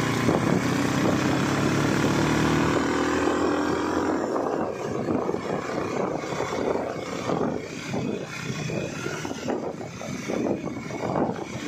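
A motor vehicle's engine running with its pitch slowly rising for the first few seconds, then fading under wind gusting and buffeting over the microphone of the moving vehicle.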